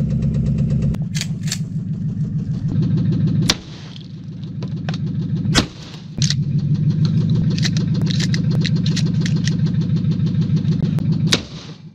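Vehicle engine running hard, straining to yank a locked car trunk open, with several sharp knocks and a few sudden drops in level.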